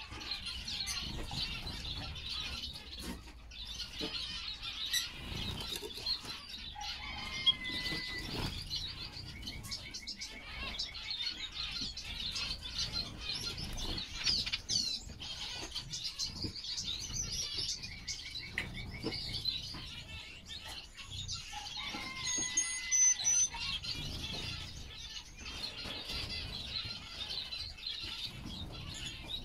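A group of caged finches (white-headed munias, red-winged pytilias and blue-capped waxbills) twittering continuously with thin high calls and a few short level whistles, with wing flutters and soft knocks as birds fly and land on perches.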